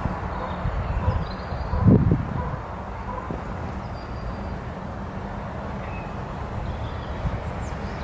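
Outdoor background noise: a steady low rumble, with one thump about two seconds in.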